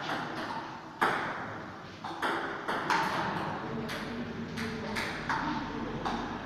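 Table tennis ball being played: sharp pops of the celluloid-type ball off the rubber bats and the table during a short rally, each with a brief ring off the room's hard walls, then a quieter stretch near the end.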